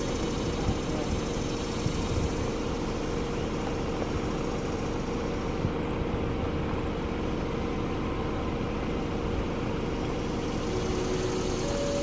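Federal Signal Thunderbolt 1000T (B series) siren's Roots blower running before the tone sounds: a steady rumble and rush of air with a few faint steady tones. A faint siren tone begins to rise near the end.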